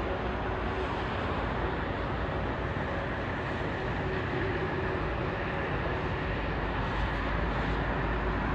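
Airbus A380 jet engines running steadily at low taxi power: an even rush of noise with a low rumble and a faint hum.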